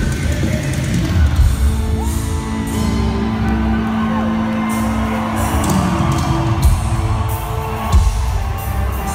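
A loud rock band playing live, recorded from the crowd on a phone: heavy drums and bass under singing, with a long held note from about two seconds in to near the six-second mark. Fans whoop over it.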